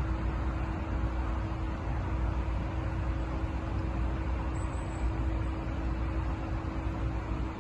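Steady low engine rumble of construction machinery running, with a constant hum over it and no change in pace.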